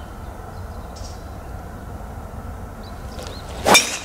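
Golf driver tee shot: a quick rising swish of the swing ending in a sharp crack as the clubhead strikes the ball, near the end, over a steady low rumble.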